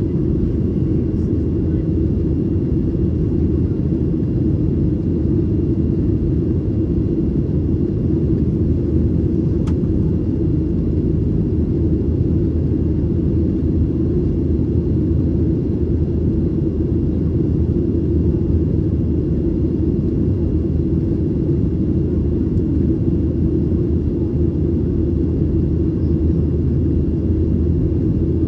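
Steady low rumble inside the cabin of a Boeing 737-900ER, its CFM56 engines and airflow heard through the fuselage, with a faint steady high tone and one brief click about ten seconds in.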